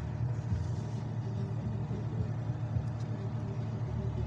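A steady low engine rumble, with a faint click about three seconds in.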